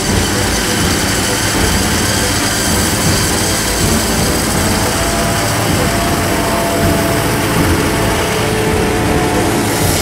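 John Deere 7500 self-propelled forage harvester chopping maize for silage, its engine and cutterhead running steadily under load. A tractor pulling a silage trailer runs alongside.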